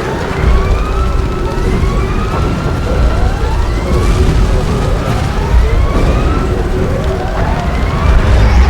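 Science-fiction sound effect for the Martian tripods: a string of rising, swooping tones, about one a second, over a loud deep rumble and a steady hum.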